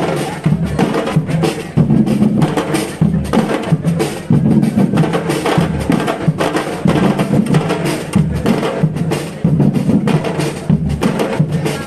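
Live music driven by drums and hand percussion, playing a busy, steady rhythm.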